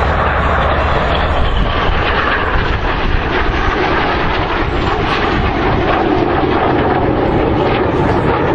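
Fixed-wing aircraft flying past, a steady loud engine rush with no clear pitch.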